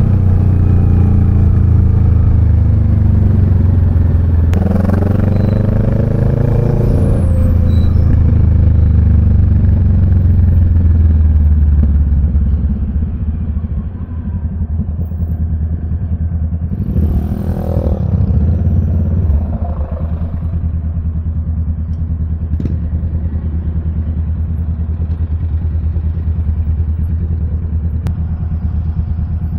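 Kawasaki Z650 parallel-twin engine running under way, loud and steady at first. About halfway through it quietens as the bike slows, then settles to a steady idle as it comes to a stop in traffic.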